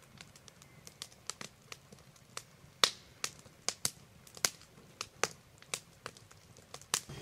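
Wood stove fire crackling: scattered, irregular sharp pops and snaps, with one louder pop about three seconds in.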